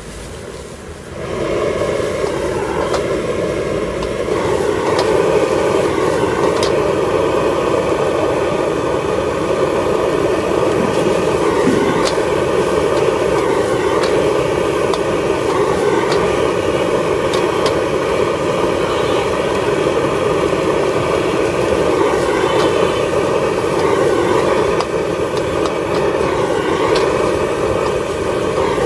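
Street-stall gas wok burner running at full flame with a steady roar, turned up about a second in. A few sharp metal clicks come through it now and then.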